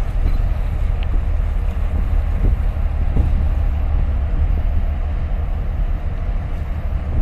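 Wind buffeting the microphone as a steady low rumble, with small waves lapping and splashing against concrete breakwater blocks a couple of times.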